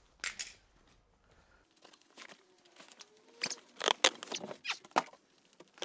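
Packing material being handled and pulled away: irregular crinkling, rustling and light knocks, busiest about halfway through.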